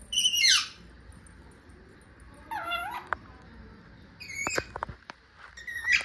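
Rose-ringed parakeet giving four short calls, the first a loud falling one, the others shorter, with a few sharp clicks just before the last call.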